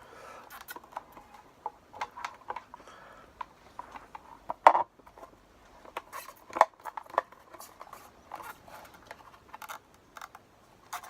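Small plastic clicks and rattles of a car wing-mirror housing and its LED turn-signal unit being handled and clipped together, with a sharp snap about four and a half seconds in and more clicks around six and seven seconds.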